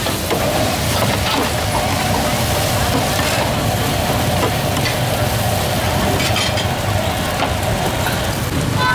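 Fried noodles sizzling on a flat steel griddle with a steady hiss while a metal spatula tosses and scrapes them, with a few sharp scrapes and clinks of the spatula on the steel.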